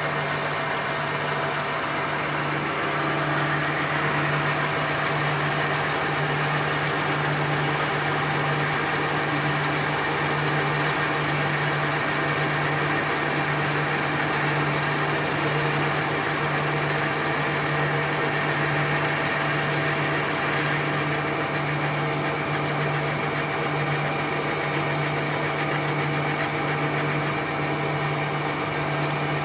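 Machine-shop machinery running steadily: a constant low hum under a broad whirring noise.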